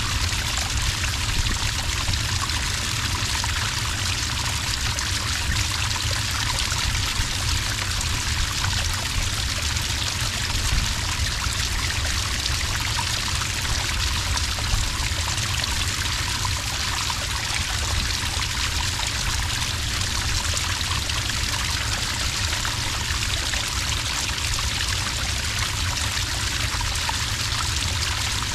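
Small cascade of water pouring steadily onto sand, a continuous splashing trickle with a low rumble beneath it.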